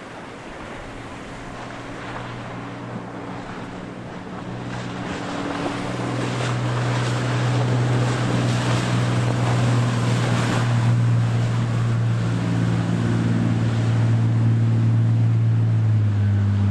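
Sport-fishing boat's engines drone low and steady, growing much louder over the first several seconds as the boat approaches and runs close by. The hiss of spray off its hull and breaking waves runs underneath.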